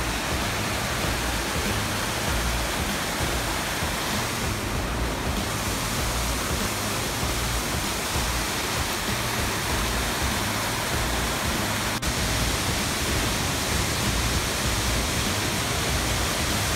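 Steady rush of a mountain creek's water cascading over rocks, with uneven low rumbles of wind buffeting the microphone.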